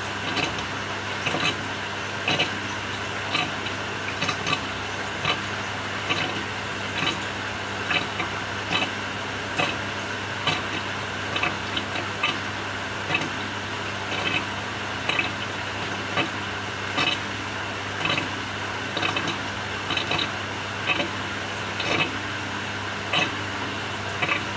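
Samsung 6.5 kg top-loading washing machine running a quick wash cycle: a steady motor hum with a regular click or knock about once a second.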